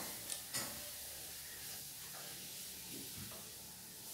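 Faint room tone, a steady hiss, with two short sharp clicks in the first second.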